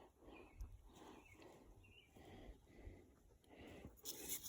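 Near silence, with a dog panting faintly in a steady rhythm of about two breaths a second.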